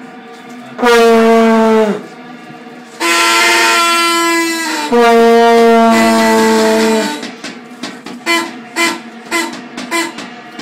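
Plastic vuvuzela blown hard in loud, steady, buzzing blasts: one of about a second, then two of about two seconds each at slightly different pitches, followed by a run of short toots about twice a second.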